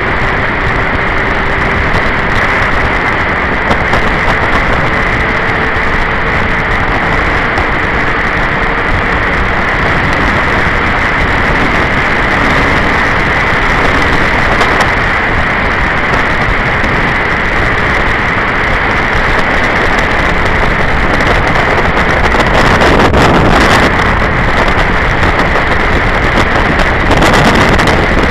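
Wind rushing over the camera microphone on a motorcycle at highway speed, with the bike's engine tone faint beneath it and slowly rising in pitch in the first part. The rushing swells louder twice near the end.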